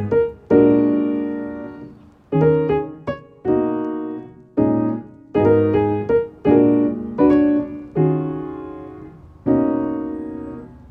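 Background music: soft piano chords, each struck and left to ring and fade before the next, about one every second or so.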